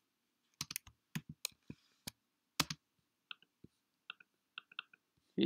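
Computer keyboard being typed on: a dozen or so separate key taps, some in quick clusters, with short pauses between.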